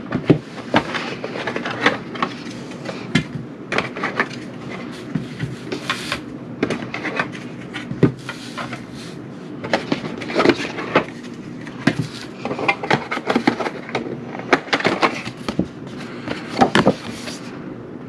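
Plastic LIFX Beam light bars being pulled from their cardboard packaging tray and set down on a tabletop, giving irregular clacks and knocks as they tap against each other and the table, with cardboard rustling in between.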